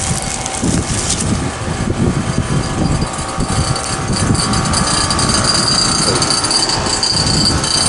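Heat pump outdoor unit running in heat mode: a steady fan and compressor hum, with a high steady whine that grows stronger about halfway through, over an uneven low rumble.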